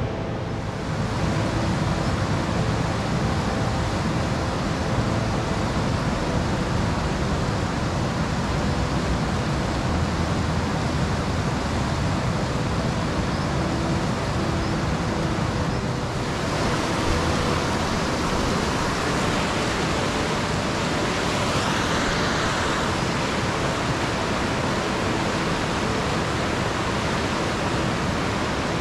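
Steady rushing of a fast-flowing river's rapids, a constant dense roar of water.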